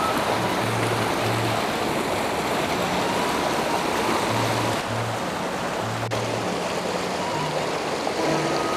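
Shallow river rushing over rocks, a steady loud rush of water. Sundanese kecapi-suling music, plucked zither notes and a held bamboo-flute tone, plays underneath.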